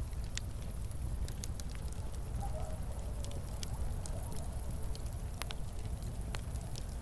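Wood fire burning in a fireplace: a steady low rumble of flames with irregular sharp crackles and pops, several a second, a few of them louder.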